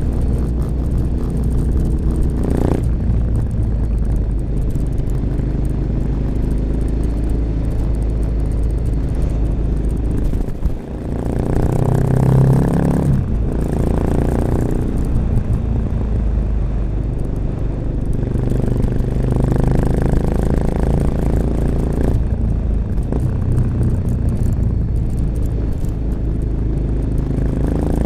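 1986 Honda XL600RM single-cylinder four-stroke engine running through an XRacing aftermarket exhaust with its dB killer fitted, pulling the bike along with the throttle opened and eased several times. About eleven seconds in the sound dips briefly, then the engine pulls harder.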